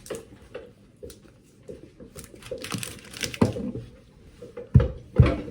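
Handling noise from baking: rustling and crinkling with scattered small clicks, then two dull, heavy thumps near the end.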